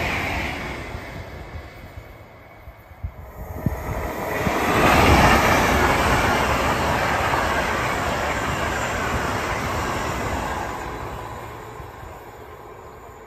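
An LNER Azuma high-speed train passes close by at speed: the rushing of wheels on rail and air swells about four seconds in and then slowly fades as it draws away. At the start, the noise of an earlier passing train dies down.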